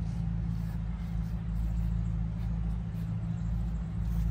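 Steady low drone of a motor on a neighbour's equipment, running evenly without change.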